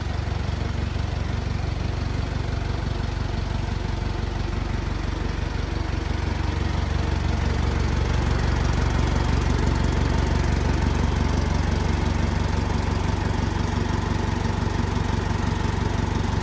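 An engine running steadily, growing a little louder about seven seconds in.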